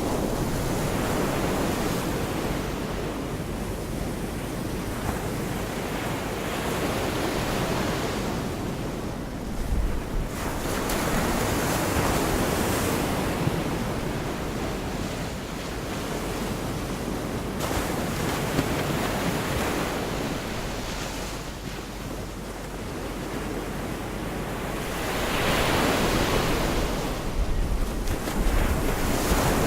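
Gulf of Mexico surf breaking and washing up the beach in a continuous rush that swells and fades, loudest about a third of the way in and again near the end. A low rumble of wind on the microphone runs underneath.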